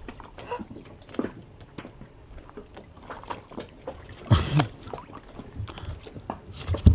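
Small waves lapping and trickling against an inflatable paddleboard in irregular little splashes, with a dull bump about four and a half seconds in and a louder thump near the end.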